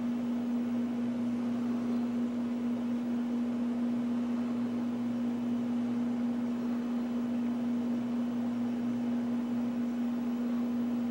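A steady mechanical hum at one constant low pitch over an even hiss, unchanging throughout.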